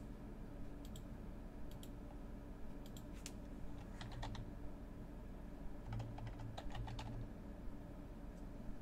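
Typing on a computer keyboard: scattered keystrokes, single and in small quick clusters, over a low steady hum.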